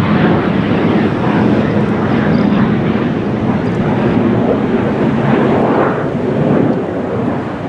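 Jet noise from an F-15J Eagle's twin F100 turbofan engines as the fighter flies past overhead: a loud, steady, rough rush of engine noise that swells slightly and eases a little near the end.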